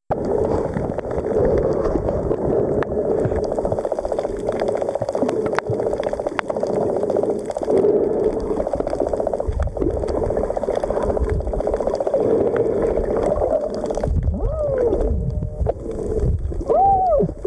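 Underwater recording of scuba regulator exhaust bubbles: a continuous rumbling gurgle with scattered clicks. Near the end, a few short whistling tones slide down and back up.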